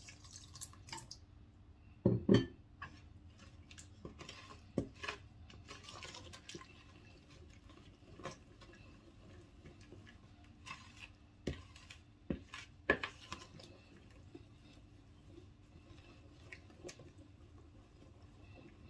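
Water poured from a glass jug into pancake batter, then a wooden spoon stirring the batter in a bowl, with scattered light knocks and scrapes against the bowl. The loudest knock comes about two seconds in.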